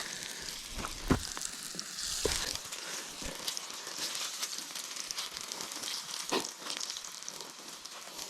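Damper dough frying in hot fat over campfire coals, a steady sizzle, with a few light knocks.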